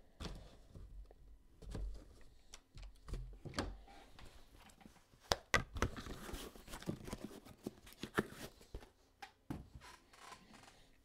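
Hard plastic card cases and a cardboard box being handled: scattered light clicks and knocks as the cases are lifted out and set down, with some rustling about six seconds in.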